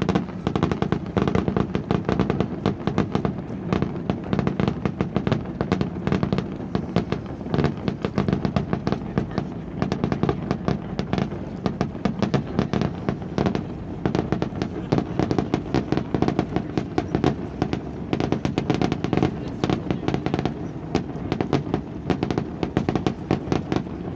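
Fireworks display: a dense, continuous barrage of rapid bangs and crackles, many per second.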